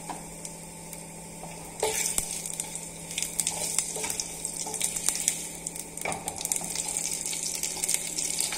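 Cumin seeds sizzling and crackling in hot mustard oil in a kadhai (a tadka), with a wooden spoon stirring them. The sizzle jumps louder and more crackly about two seconds in.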